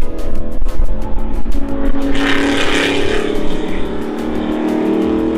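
Race car engine running hard and accelerating, its pitch climbing steadily through the second half, with a brief rush of noise about two seconds in. Background music with a steady beat plays underneath.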